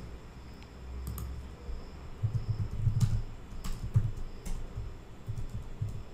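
Computer keyboard typing: a few separate, unevenly spaced keystrokes over a low background hum.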